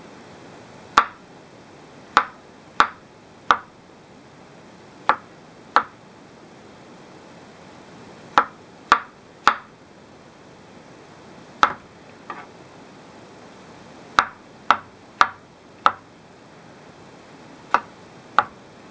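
Kitchen knife slicing mushrooms on a wooden cutting board: sharp knocks of the blade striking the board, about sixteen in short irregular runs of two to four cuts.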